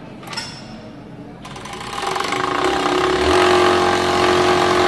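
JACK E4S industrial overlock machine starting about a second and a half in, speeding up and then running steadily as it sews a three-thread overlock seam along the fabric edge.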